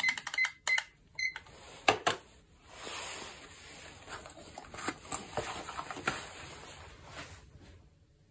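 A digital kitchen timer beeps several times in quick succession as its buttons are pressed. This is followed by a few seconds of rustling and light knocking as a paper cup is handled and slipped into a padded fabric food cozy.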